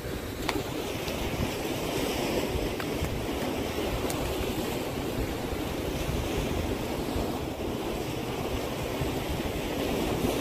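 Sea waves washing against a concrete breakwater, with wind buffeting the microphone.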